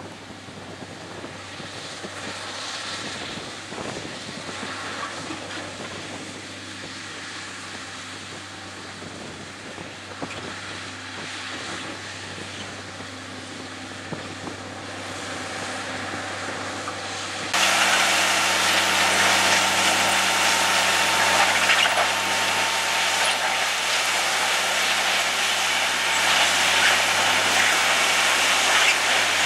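Loram shoulder ballast cleaner working along the track: its power units run with a steady hum under the noise of the digging wheels churning and dumping ballast. About two-thirds of the way through it gets suddenly much louder and harsher as the machine is heard from close by.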